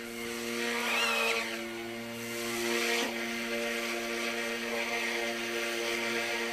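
Eachine E150 RC helicopter's brushless electric motors whining with rotor hiss as the throttle is worked on the ground. The whine bends up and down about a second in, and the rotor noise swells again around three seconds in.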